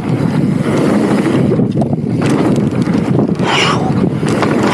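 Wind buffeting the camera microphone during a mountain bike ride, a loud, steady low rumble, with a brief hiss about three and a half seconds in.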